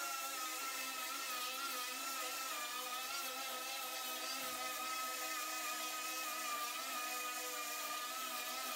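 Pneumatic grinder with a diamond-plated 36-grit disc running steadily as it scuffs the surface of a PLA 3D print, a steady whine whose pitch wobbles slightly as the disc bears on the plastic.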